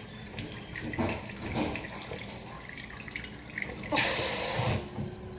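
Water running from a kitchen tap, with scattered light knocks and clicks; the water gets louder for a moment about four seconds in.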